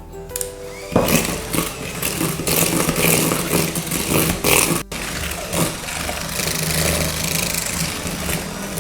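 Electric mixer running, beating eggs into creamed margarine and sugar for a sponge batter. The motor starts about a second in with a steady hum and a clattering churn from the beaters and bowl, and cuts out very briefly midway.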